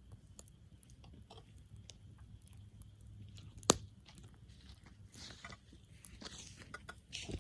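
Campfire wood crackling: scattered small crackles and one sharp, loud pop about halfway through, with short hissing rushes near the end.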